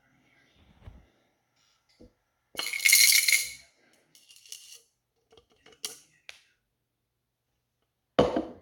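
Small metal laptop screws rattling and clinking as they are handled, in a few separate bursts, the loudest about three seconds in, with a couple of sharp clicks near six seconds.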